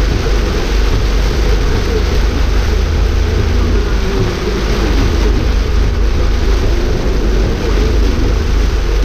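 Steady noise inside a car driving on a waterlogged road in heavy rain: a low rumble of engine and tyres under an even hiss of rain and water spray.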